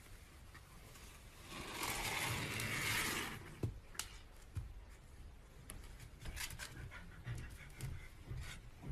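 An animal panting, loudest about two to three seconds in, followed by scattered small clicks.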